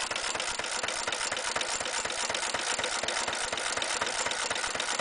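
Circa 1924 Lion D Type throttle-governed stationary petrol engine running steadily, a fast, even rhythm of sharp beats.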